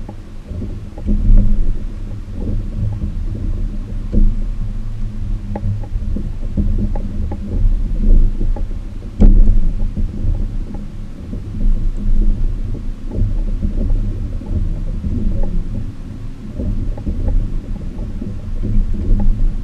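Muffled low rumbling from a kayak under way, with a few sharp knocks, the loudest about nine seconds in.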